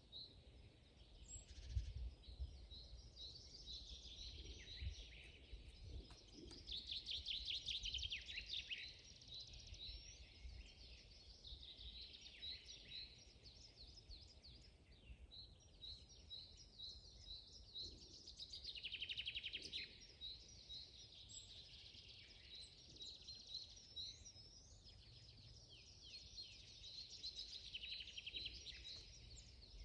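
Several songbirds singing together in a forest: many overlapping high chirps and repeated notes, with fast trills swelling twice, about a quarter of the way in and again around two thirds of the way in. A faint low rumble runs underneath.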